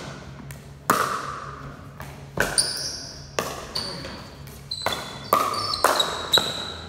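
Pickleball rally: sharp pocks of solid paddles striking the hollow plastic ball and the ball bouncing on the concrete floor, each echoing in the big room. The hits come about a second apart at first, then quicker, several in the last two seconds.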